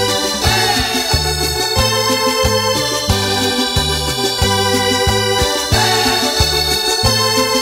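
Sampled Yamaha YC-45D combo organ played on a Korg Kronos: held organ chords over a repeating bass line, with a falling sweep about half a second in and again near the end.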